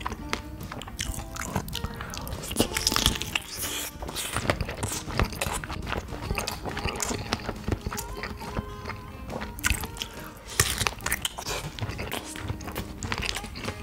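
Close-up biting and chewing of a smoked kielbasa sausage and curry rice, with many sharp, wet mouth clicks. Background music plays throughout.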